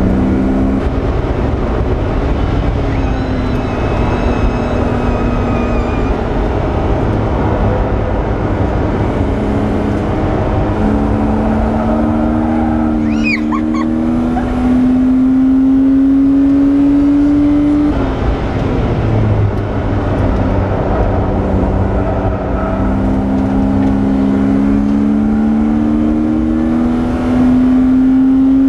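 Race car engine heard from inside the cabin under hard acceleration, its pitch climbing slowly as the revs rise, dropping sharply about 18 seconds in, then climbing again. A brief high squeal about 13 seconds in.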